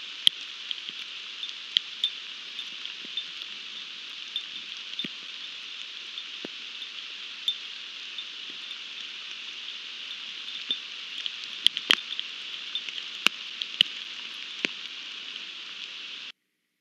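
Steady rain, an even hiss with scattered sharp ticks of drops landing close by; it cuts off suddenly near the end.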